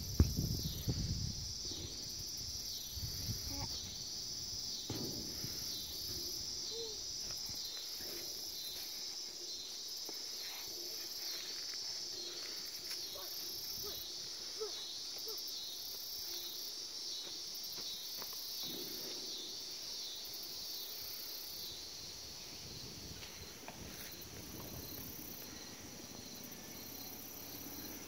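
Outdoor insect chorus of crickets and other insects, with a high chirp repeating about twice a second and a still higher trill coming and going every second or so. A few low thumps near the start.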